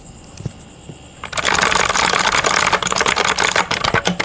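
Rapid typing on a mechanical keyboard with blue (clicky) switches, a fast stream of sharp clicks that starts about a second in.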